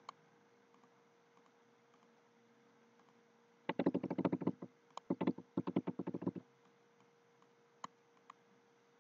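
Typing on a computer keyboard: three quick runs of keystrokes in the middle, filling in a username and then a password. There is a single click at the start and two lone clicks near the end.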